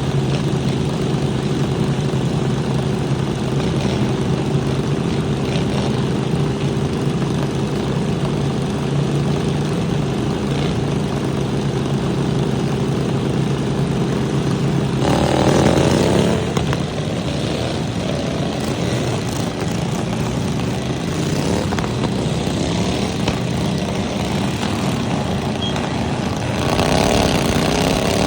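Small lawnmower engines running steadily, then revving up and down in pitch about halfway through and again near the end.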